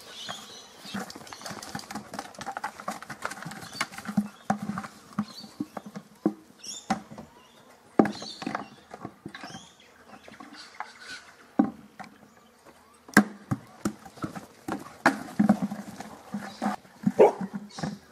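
A dog's plastic flower pot toy knocking and clattering as it is dropped, picked up and pushed about, mixed with the dog's paws thudding on a wooden table top and dirt. The knocks come irregularly, a few of them sharp and loud.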